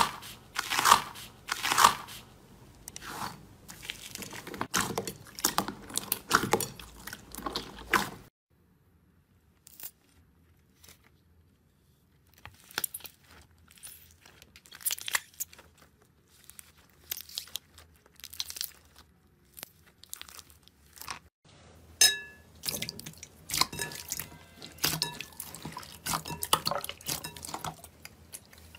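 Hands squeezing and kneading slime: a run of wet squishes and crackling pops. About eight seconds in it cuts to sparser, quieter squelches of soft jelly cubes being pressed. Near the end come sticky clicking pops of clear slime being stretched.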